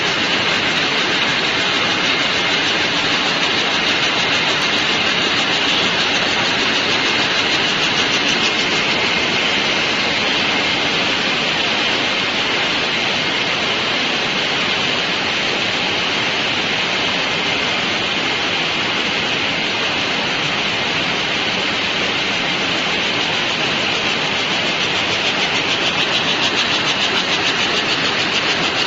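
Air-jet towel looms running at speed in a weaving shed: a loud, steady, fast clatter of the looms' beating, with a strong hiss over it.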